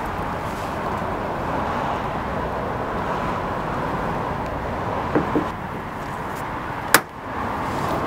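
Pliers drawing the tail of a plastic push-in expanding clip, with a couple of small clicks, then one sharp snap about seven seconds in as the clip's tail breaks off: the sign that the clip has fully expanded and locked. A steady outdoor background hum runs underneath.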